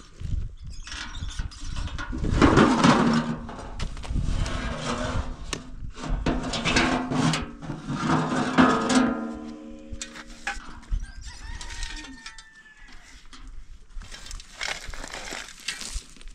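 Rocks clattering and scraping as stones are tipped from a metal wheelbarrow and shifted on a rock pile. A rooster crows about midway.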